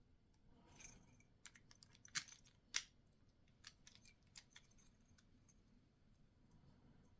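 Scattered small metallic clicks and taps of a padlock and its small parts being handled during reassembly, faint and irregular, with a few sharper clicks about two to three seconds in.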